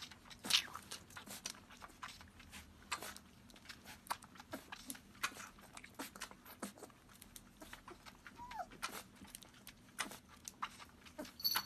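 Puppy sucking milk from a small feeding bottle: a quiet, uneven run of wet sucking and smacking clicks at the nipple, with one brief squeak about two-thirds of the way through.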